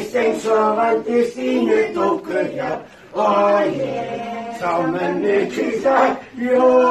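Group singalong of a Christmas song, with a man's singing voice prominent over the others. The notes are held, with short breaks between phrases about three and six seconds in.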